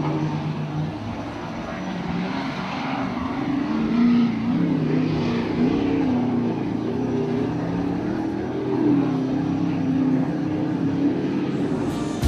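Offshore racing powerboat engines running flat out, their drone rising and falling in pitch as the boats pass.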